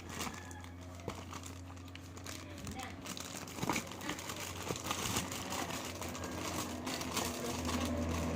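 Plastic packaging rustling and crinkling as the wrapped parts of a car alarm kit are handled, with scattered small clicks and taps.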